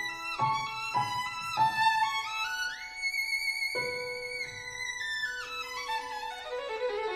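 Background music: a violin melody of long held notes that slide from one pitch to the next.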